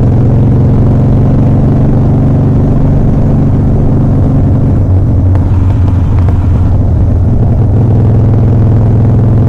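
2007 Harley-Davidson Softail Custom's V-twin engine running. Its steady low note turns rough and uneven for a few seconds midway, then steadies again.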